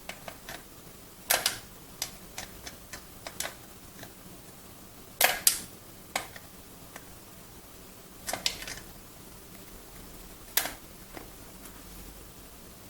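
Pliers gripping and turning the seat clamp nut on a kid's bicycle seat post, giving scattered sharp metal clicks and clacks, the loudest a double clack around the middle.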